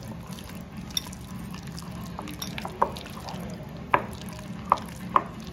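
A hand squishes and mixes wet prawns with beaten egg and flour in a glass bowl, making soft squelching sounds. A few sharp clicks sound against the bowl through the mixing.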